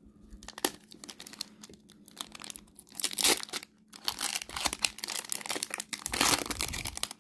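Foil wrapper of a Pokémon TCG Cosmic Eclipse booster pack crinkling and tearing as it is worked open by hand. A few light clicks come first, then loud crackling bursts about three seconds in and again near the end.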